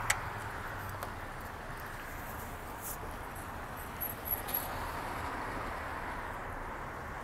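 Road traffic passing at an intersection: a steady hum of car engines and tyres on the road, with a sharp click just after the start and a few short high chirps about four seconds in.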